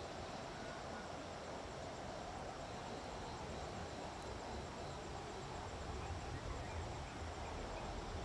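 Steady rushing of the Bhadra River in flood, fast muddy water running high against the bridge. A low rumble builds near the end.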